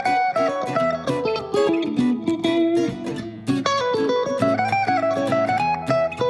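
Background music led by plucked guitar, playing a melody of quick picked notes.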